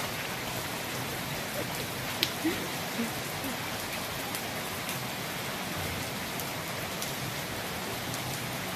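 Steady rain falling on wet courtyard paving, with one sharp tap about two seconds in.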